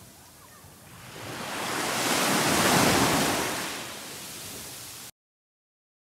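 A small sea wave washing up onto a sandy shore, swelling to a peak and easing off as it draws back. The sound cuts off suddenly near the end.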